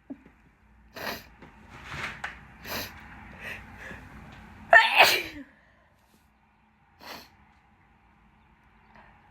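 A woman's allergy sneeze, which the uploader puts down to heavy pollen: several short catching breaths and sniffs over about four seconds build to one loud sneeze about five seconds in. A single sniff follows about two seconds later.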